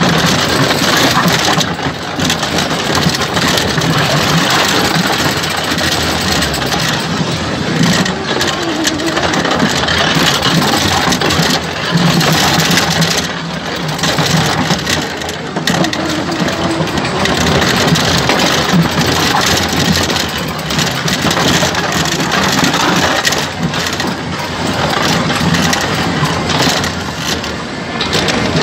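Snail-ride car running along its rail track: the loud, continuous rattle of its wheels on the rails.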